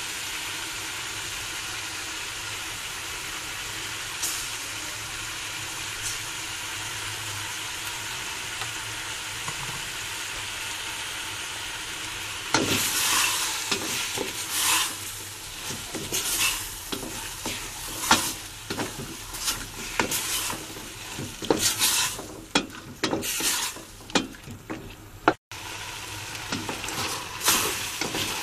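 Chayote and carrot strips sizzling in a hot pan, a steady hiss. About twelve seconds in, a spatula starts stirring and scraping against the pan in irregular strokes as the tomato sauce is mixed into the vegetables.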